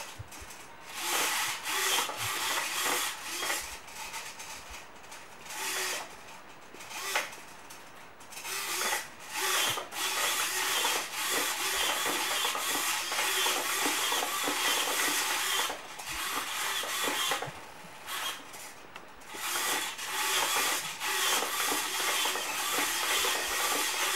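Small servo motors in the forearm of a 3D-printed robotic hand whirring as they drive the fingers open and closed, in bursts of one to several seconds that stop and start again as the fingers change position.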